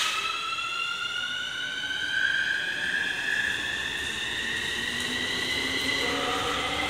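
Keikyu 1000 series electric train accelerating away from the platform. The inverter-driven traction motors give a whine of several stacked tones that climbs steadily in pitch as the train speeds up, over a building rumble of wheels on rail.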